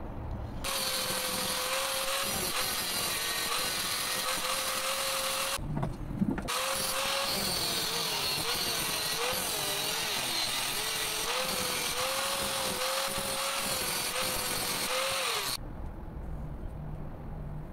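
Angle grinder with a thin cutting disc slicing through a steel block. It is a dense, high-pitched grinding noise over a motor whine that dips in pitch as the disc bites. There is a short break with a knock about six seconds in, and the grinder stops shortly before the end.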